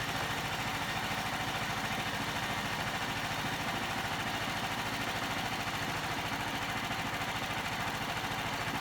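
Bandsaw mill's engine running steadily at an even, unchanging pace.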